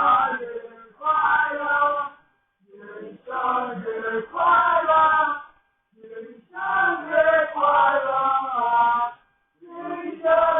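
A group of people singing together in phrases of a second or two, with short pauses between them.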